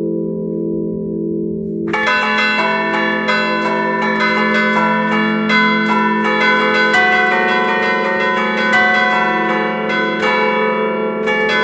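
A set of tuned church bells played by hand from a lever keyboard in the Bergamasque allegrezza style. At first only the bells' hum rings on; about two seconds in, rapid clapper strikes begin on several bells and run on in a fast, dense melodic pattern.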